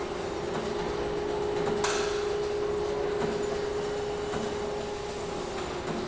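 Factory interior ambience: machinery running with a steady droning tone over a noisy din, scattered light knocks, and one sharp clank about two seconds in.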